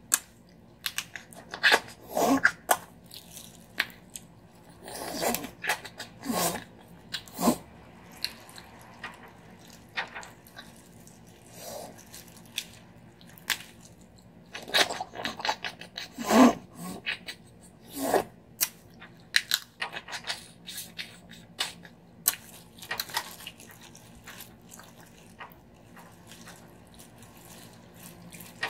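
Cooked crab being cracked and picked apart by hands in thin plastic gloves, with crackling shells, crinkling gloves and close-up chewing and mouth sounds. Now and then a short sound from the eater's voice.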